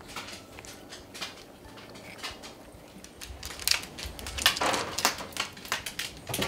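A dog's claws clicking and tapping on a wooden floor as it walks, the taps coming quicker and louder about halfway through.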